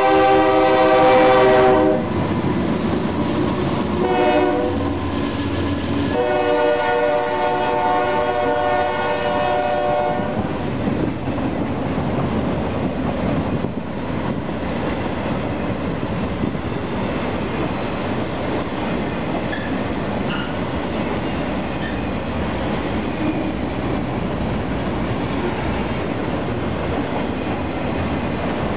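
Union Pacific freight locomotive's air horn sounding as it passes. A blast ends about two seconds in, a short toot comes around four seconds, and a long blast runs until about ten seconds in, the close of a grade-crossing horn signal. Then a steady rumble and clatter of autorack cars rolling by on the rails.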